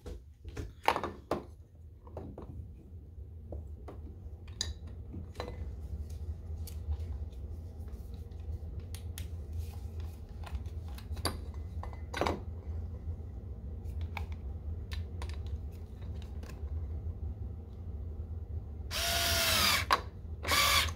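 Small Black+Decker 4V cordless screwdriver whirring in two short bursts near the end, its pitch dipping and recovering as it drives a wood screw through a pull-up bar bracket into a wooden door frame. Before that come scattered light clicks and taps of the screw and bracket being handled, over a steady low hum.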